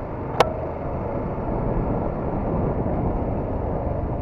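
Honda MSX125's single-cylinder engine running on the move under a steady rush of wind and road noise on the microphone. A single sharp click about half a second in.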